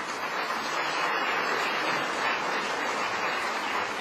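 Audience applauding steadily, a dense, even clatter of many hands.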